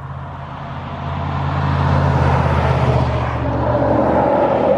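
A motor vehicle passing by, its engine hum and road noise swelling to a peak about halfway through and staying loud toward the end.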